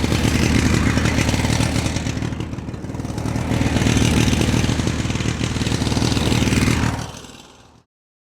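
A motor vehicle's engine running steadily. It dips in level about two and a half seconds in, picks up again, then fades out shortly before the end.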